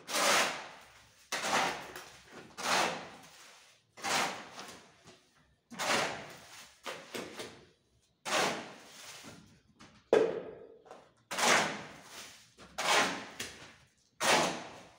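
A steel shovel scraping across a concrete floor as it turns a wet mix of sand, mortar cement and water. About a dozen scraping strokes, roughly one a second, each swelling and fading.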